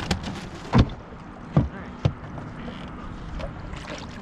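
A few dull knocks and thumps on a small fishing skiff, three or four in the first two seconds, over a steady background hiss.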